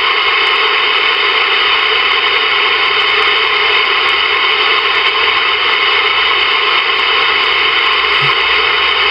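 Ranger VR-9000 multimode CB receiver tuned to 27.515 MHz lower sideband, giving a steady hiss of static through its speaker with no voice coming through.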